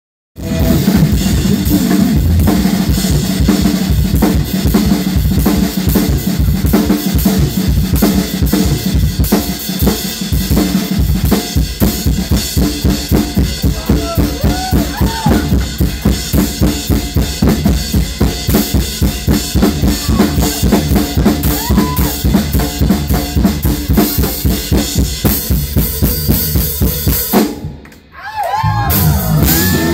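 Live drum kit solo: fast, dense strokes with cymbals ringing over them. Near the end the drumming stops abruptly for about a second, then the band comes back in with guitar.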